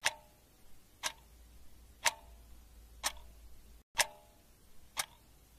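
A clock ticking at one tick a second, each tick sharp and short with a slight ring.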